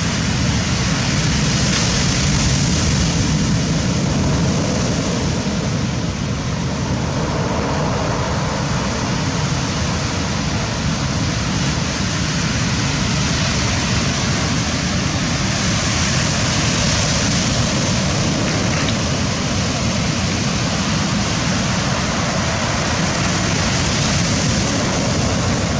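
Rough sea surf breaking and washing: a loud, steady rush that swells slightly now and then.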